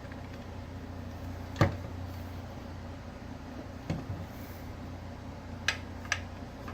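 A few sharp clicks and knocks as the parts of an opened kitchen mixer grinder are handled, the loudest about one and a half seconds in, over a steady low hum.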